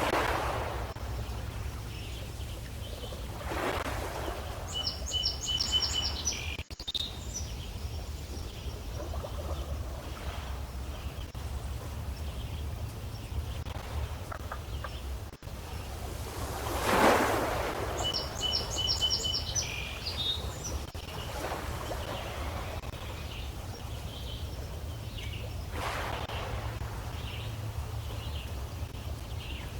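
Small lake waves lapping at the shore in a light wind, with a soft splash every several seconds, the strongest about halfway through, over a steady low rumble of wind on the microphone. A bird sings the same short phrase of quick high notes twice.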